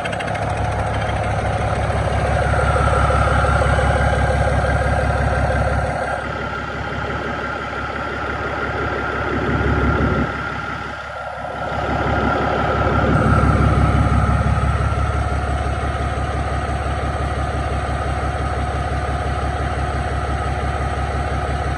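Used 2015 Cummins ISX12 inline-six diesel engine running steadily at idle on a stand. The sound dips briefly about halfway through, then comes back to the same steady level.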